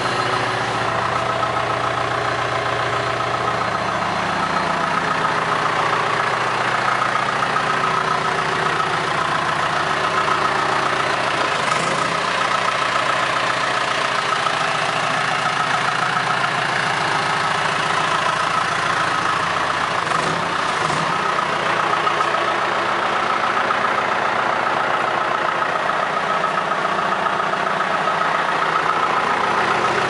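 1998 John Deere 310E backhoe's four-cylinder diesel engine idling steadily.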